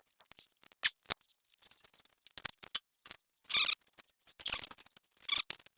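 Hands working with electrical wire: scattered sharp clicks and a few short scratchy rasps.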